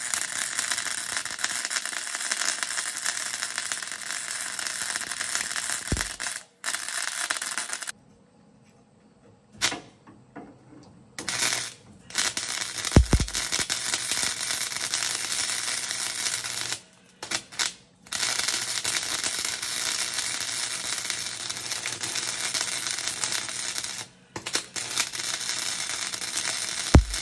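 Wire-feed welder's arc crackling and sizzling as a new sheet-metal floor pan is welded to the sill, in long runs that stop for a moment about six seconds in, for several seconds a third of the way through, and again twice later. A low thump sounds between runs about six and thirteen seconds in.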